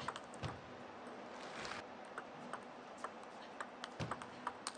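Table tennis rally: the celluloid-type plastic ball clicking sharply off the players' rubber-faced bats and the table top, a few hits each second in an uneven rhythm.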